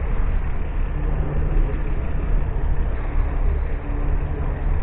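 Semi-truck diesel engine idling, a steady low rumble.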